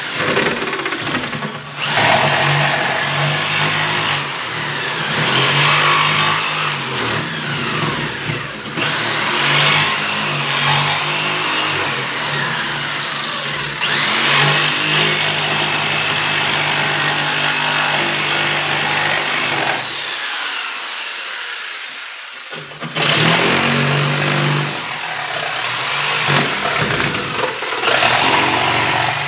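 Corded Ryobi jigsaw cutting through plywood: the motor runs hard with the blade chattering through the wood. It eases off briefly a few times, and for a couple of seconds about two-thirds through, before cutting again at full speed.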